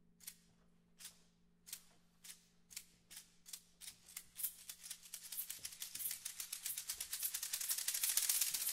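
Hand percussion playing dry, sharp clicking strokes, about two a second at first, that speed up and thicken into a dense, loud rattle toward the end.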